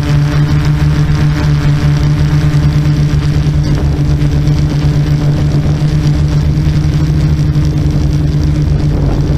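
Yuneec Typhoon quadcopter's motors and propellers humming steadily in flight, one low hum whose pitch holds constant throughout.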